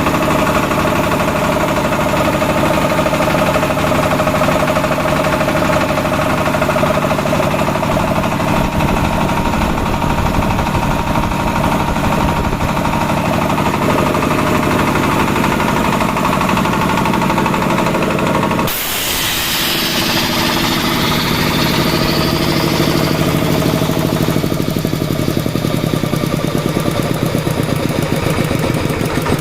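Engine-driven air compressor unit, a Fumitsu 24 HP engine with a high-pressure compressor pump, running steadily. About two-thirds of the way through, a loud hiss of air suddenly starts over the engine, and a few seconds later the engine note drops and settles.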